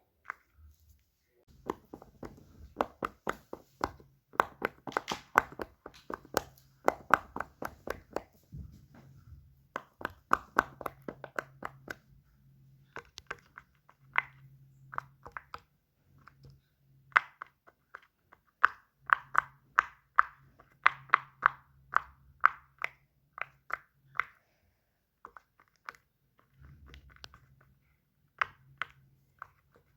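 Fidget toys being clicked and snapped by hand: quick runs of sharp plastic clicks, several a second, broken by short pauses.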